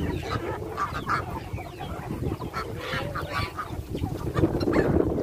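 Mixed flock of domestic ducks and chickens calling all at once, with many short calls overlapping.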